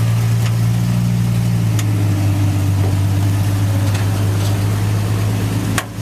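An engine running steadily at an even, low pitch, with a few sharp clicks over it. The hum drops out briefly, with a click, just before the end.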